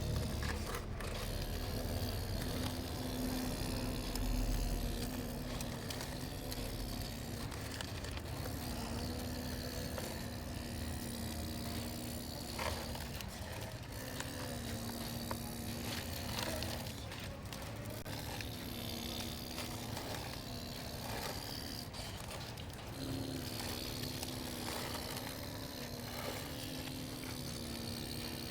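Radio-controlled model excavator working: a steady electric motor hum that steps up in pitch about three-quarters of the way through, with scattered scrapes and clicks.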